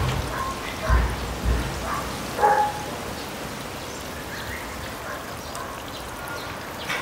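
Strong wind gusting against the microphone with low buffeting thumps in the first couple of seconds, then a steadier rush of wind through garden leaves.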